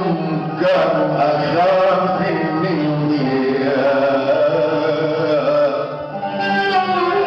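Male singer performing Arabic tarab-style vocals, holding long notes that bend and waver in pitch, with qanun and oud accompaniment; a new phrase starts near the end.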